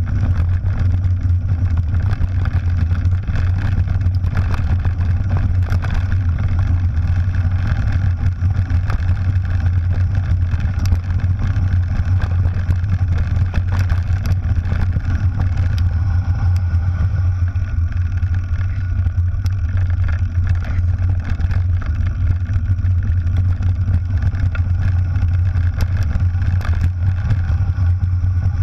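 Mountain bike rolling fast down a gravel track: a steady, loud wind rumble on the bike-mounted camera's microphone, with tyres crunching over gravel and frequent small rattles and clicks from the bike over the rough surface.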